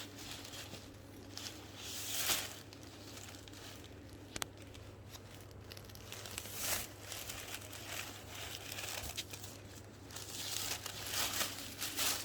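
Packaging crinkling and rustling as a new handbag is unwrapped, in uneven bursts, loudest about two seconds in and again near the end, with one sharp click in the middle.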